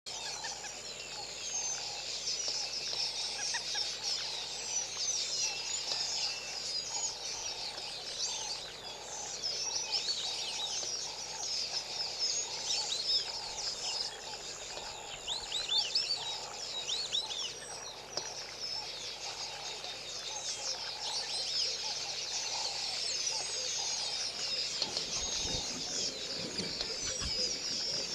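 Natural chorus of many birds chirping and insects calling, with a steady high insect whine over it and a lower call repeating about once a second. Some low rumbling comes in near the end.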